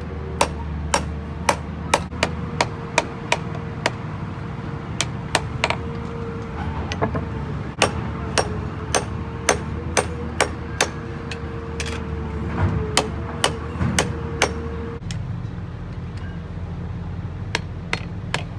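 Blacksmith's hand hammer forging a rebar sickle blade on a steel anvil: sharp metal-on-metal strikes at about two to three a second, with a few short pauses. A steady hum runs under the blows and stops about three-quarters of the way through.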